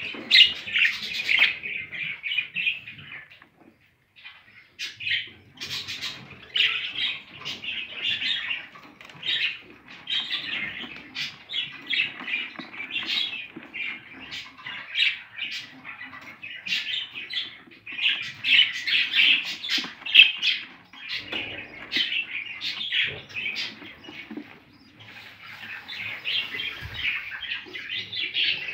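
Budgerigars chirping and chattering in quick runs of short calls, with a brief lull about four seconds in.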